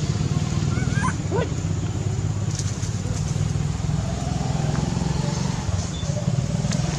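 A steady low engine rumble, with a couple of brief high squeals about a second in.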